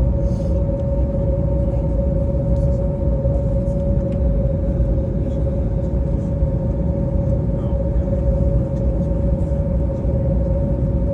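Steady low rumble of a moving vehicle heard from inside, with a constant mid-pitched hum running over it.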